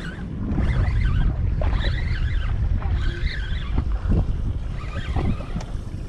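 Wind buffeting the microphone on a small open boat, a heavy, uneven rumble.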